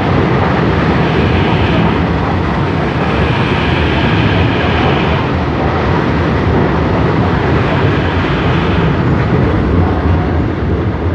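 Frota P metro train running along a station platform, a loud steady rolling noise of the train on the rails.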